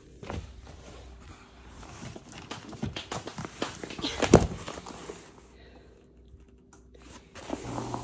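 Irregular clattering, scraping and clicking from a cardboard box of live blue crabs being handled, with a loud knock about four seconds in.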